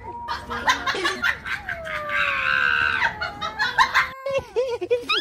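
A cat's long, drawn-out yowl that wavers in pitch for about four seconds and stops abruptly, with short bursts of laughter around it.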